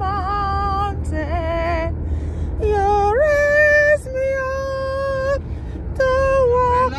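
A single unaccompanied voice singing a slow melody in long held notes, with no clear words, over the steady low rumble of a car in motion.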